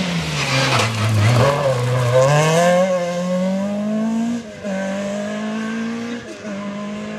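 Rally car passing at speed and accelerating away down the stage: its engine note drops low, then climbs steadily as it pulls through the revs, cuts out briefly about four and a half seconds in, then holds steady as the car goes off into the distance.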